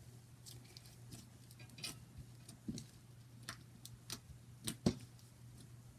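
Soft butter slime being stretched and poked by hand, giving small irregular clicks and pops about once or twice a second.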